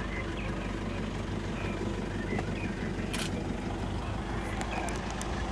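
Game-drive vehicle's engine running with a steady low hum as it creeps along slowly. A brief hiss about three seconds in.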